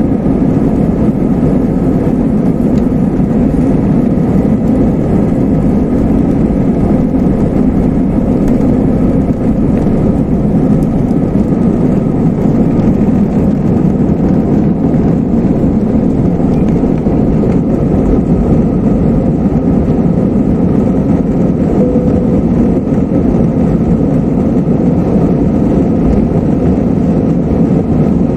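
Airbus A320-214's CFM56 turbofan engines at takeoff thrust, heard from inside the cabin: a steady, loud roar through the takeoff roll and climb-out.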